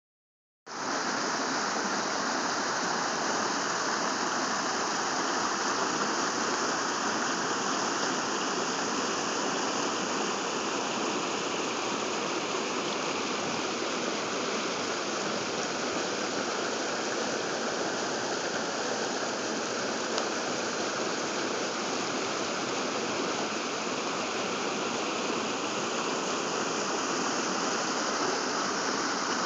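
Rocky stream tumbling over boulders and small cascades: a steady, unbroken rush of water that starts about half a second in.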